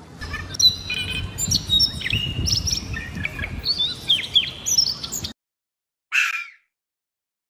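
Songbird chirping and singing in a quick run of high whistles and short gliding notes, over a low wind-like rumble. It cuts off about five seconds in, and a brief hiss-like burst follows a second later.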